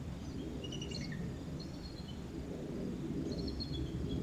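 Bald eagles calling: thin, high chirping notes in short series, over a steady low outdoor rumble.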